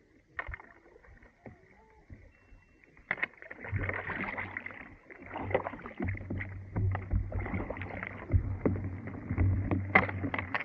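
A tandem kayak being paddled through brash ice: paddle strokes and chunks of ice knocking and scraping against the hull and blades, a dense crackle of sharp clicks. It starts about three seconds in after a quieter stretch, with a sharp knock near the end.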